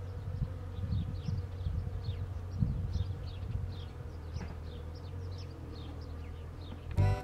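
A bee buzzing close by at cherry blossoms, its hum swelling and fading unevenly as it moves about the flowers.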